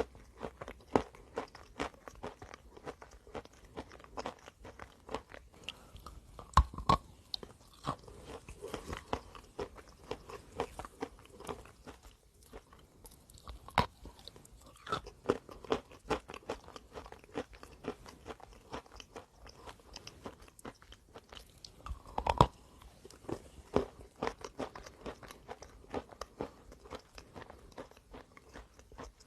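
A person biting and chewing a hard chalky block: a steady, irregular run of crisp crunches, with a few louder bites standing out.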